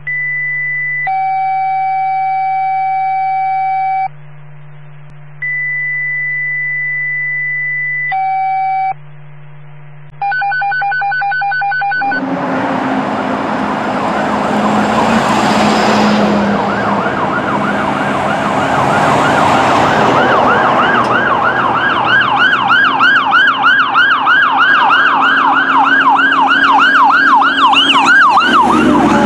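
A run of steady electronic tones, each held for a second or a few seconds over a low hum, for about the first twelve seconds. Then a 2005 Sutphen fire engine responding with its siren wailing over engine and road noise, the siren switching to a fast yelp about two-thirds of the way through.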